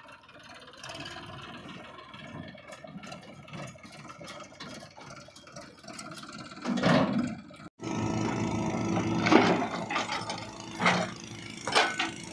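Diesel engines of a tractor and a backhoe loader running at work. After an abrupt cut about two-thirds of the way in, the JCB 3DX backhoe loader's engine is louder, with several loud knocks.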